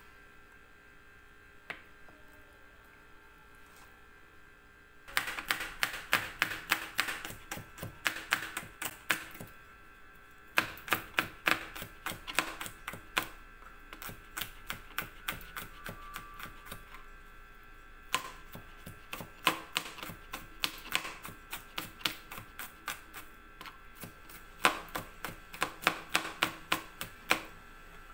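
Kitchen knife rapidly chopping garlic cloves on a plastic cutting board, quick sharp taps several a second in runs with short pauses. They start after a few quiet seconds.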